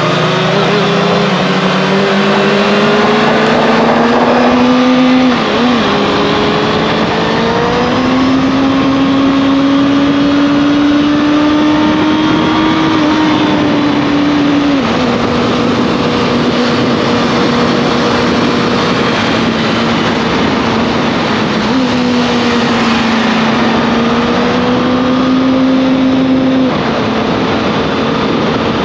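Motorcycle engine running under way. The note climbs slowly and drops sharply a few times, with a dip near the start and steps down about halfway and near the end.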